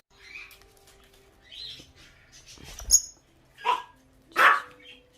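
A pet lovebird giving a few short, harsh squawks, the two loudest about three and a half and four and a half seconds in.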